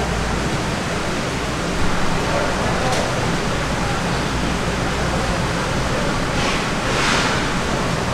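Steady background hiss with a low rumble beneath it, one sharp click about three seconds in and a brief swell of hiss near the end.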